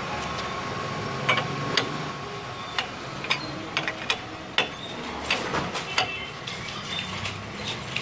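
Irregular sharp metallic clicks and clinks of an L-shaped wheel brace's socket working the wheel nuts on a car's steel wheel, over steady background noise.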